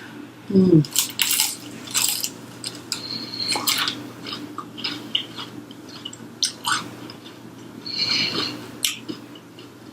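Close-up biting and chewing of crispy fried chicken, with many short crunches. A brief low vocal sound comes about half a second in.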